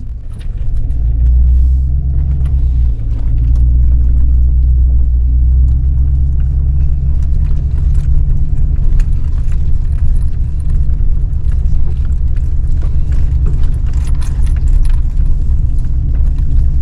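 Steady low road rumble of a vehicle driving, heard from inside the cab, with light rattles and clicks over it.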